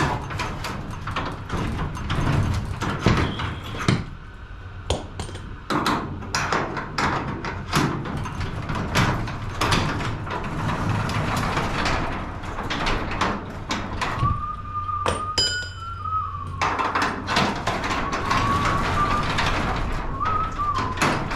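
Repeated clanks and knocks from work on a garage door and its hardware during a spring and roller replacement. A wavering high-pitched squeal comes in about two-thirds of the way through, drops out for a moment, then returns.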